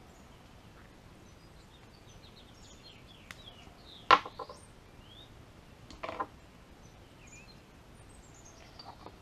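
Quiet handling of a small fitting and a roll of thread-seal tape at a workbench. There is a sharp click about four seconds in and a shorter clatter about two seconds later, over faint room noise with a few faint high chirps.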